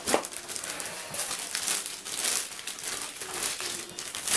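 Clear plastic bag crinkling and rustling in a run of irregular crackles as the radio transmitter wrapped in it is handled and lifted out of its styrofoam packaging tray.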